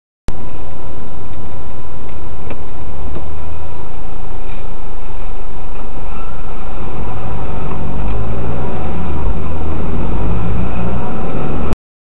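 Loud vehicle road and engine rumble from traffic, heavy at the low end, starting and stopping abruptly, with a faint wavering tone in the second half.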